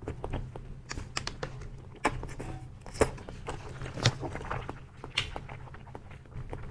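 Close-up eating sounds of chewy milk-tea jelly being sucked from a plastic tube pouch and chewed: wet mouth smacks and sticky clicks at irregular moments, with a light crinkle of the plastic wrapper.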